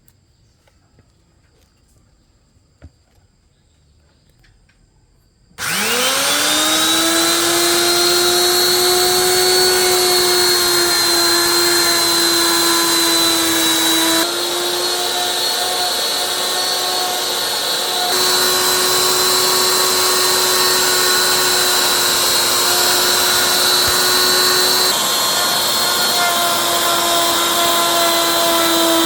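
Mini woodworking machine's electric motor switched on about five seconds in. It spins up with a rising whine, then runs steadily with a loud, even hum, its tone shifting slightly a couple of times.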